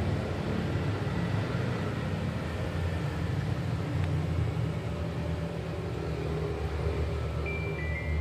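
Steady low background rumble with a hiss, with one faint click about four seconds in and a brief high tone near the end.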